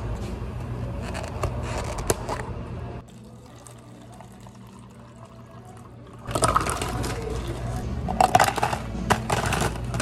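Iced drinks being made in plastic cups: a metal spoon working at the top of a milky iced coffee, with a few light clicks over a low steady hum. After a quieter stretch, water is poured from a pitcher into a plastic cup from about six seconds in, splashing loudly with sharp clatters.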